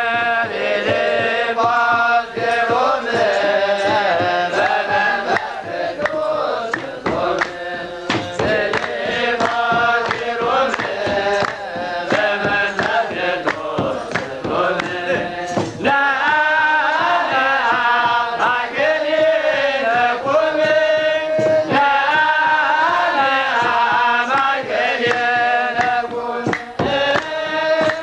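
Eritrean Orthodox Tewahedo clergy chanting a liturgical hymn together, many male voices in sustained, wavering lines, with frequent struck percussion strokes running through it.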